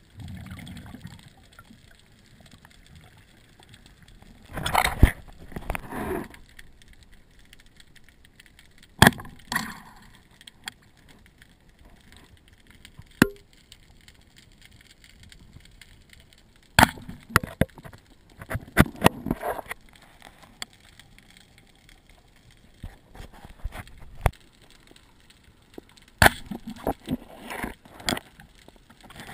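Handling noise of a band-powered speargun underwater, picked up through the camera mounted on it: scattered sharp clicks and knocks, some in short clusters, with quiet stretches between.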